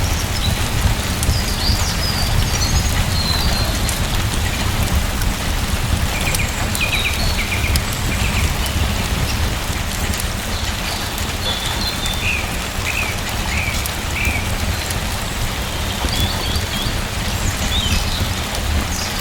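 Steady rain falling on a surface, with short high bird chirps coming and going over it.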